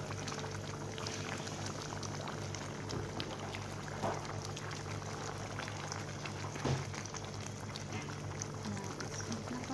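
A pot of meat broth with spices bubbling at a boil on a gas stove, a steady fine crackle of bursting bubbles over a low hum. A couple of soft knocks about four and seven seconds in.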